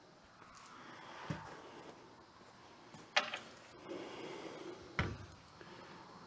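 Hand tools and a socket being handled: a low thump, then a sharp metal click about three seconds in and a louder knock about five seconds in as a socket is set on the engine's cast-iron crankcase and tools are put down.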